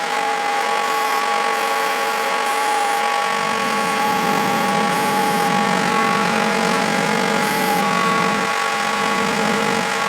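A motor running steadily with a constant whine. A lower rumble joins about a third of the way in and drops away near the end, as if the load on it changes.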